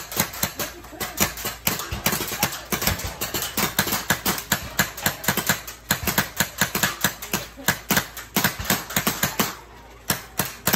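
Paintball guns firing in quick, irregular succession, a sharp pop several times a second, thinning out near the end.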